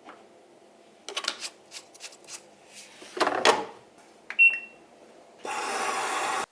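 A few sharp clicks and knocks, a louder clatter, then a single short electronic beep, followed by a steady hiss about a second long that cuts off suddenly.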